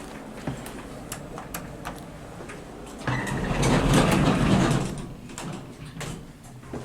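Lift doors sliding, a loud rush of noise lasting about two seconds that starts about three seconds in, over a steady low hum with light clicks.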